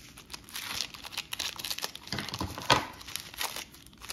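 Grey plastic poly mailer bag crinkling as it is handled and torn open by hand, with irregular crackles and one louder crackle about two-thirds of the way in.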